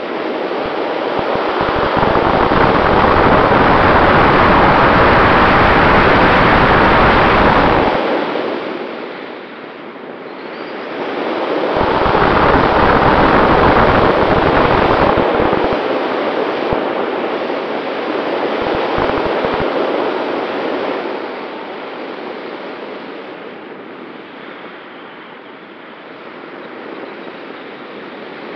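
Airflow rushing over the onboard camera's microphone on a flying ASW 19 glider. The rush swells loud, dips about ten seconds in, swells again, then eases to a softer steady hiss.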